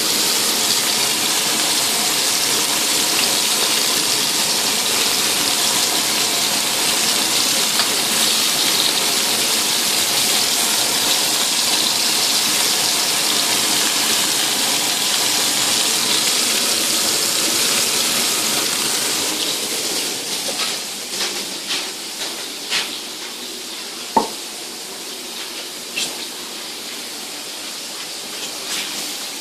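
Vegetable skewers and a flatbread frying in hot oil in a pan, a steady sizzle. About twenty seconds in the sizzle grows fainter and a few sharp clicks and knocks follow.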